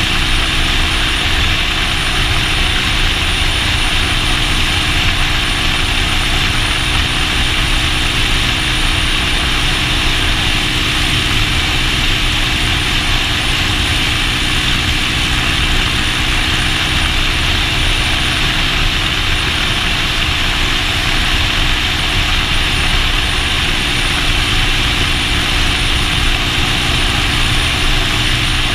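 A 40-year-old custom Triumph motorcycle's engine running at a steady cruising speed, under a loud, even rush of wind over the camera's microphone.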